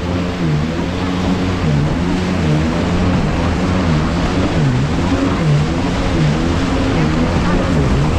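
Jet ski engine running at speed, its note dipping and recovering again and again as the craft bounces and turns over the waves, over the rush of spray and wind.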